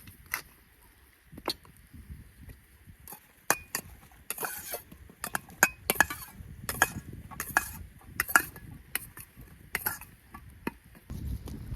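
A string of sharp metallic clinks and short scrapes at an irregular pace, a dozen or more, with the busiest stretch in the middle.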